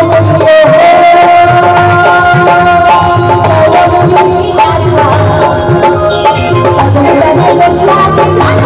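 Loud music over a PA sound system, with drums and a shaker under a long held melody note in the first few seconds.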